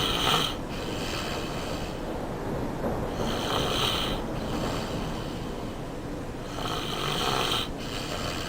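A person snoring in slow, regular breaths, one snore about every three seconds: three in all, one just at the start, one a little over three seconds in and one near the end.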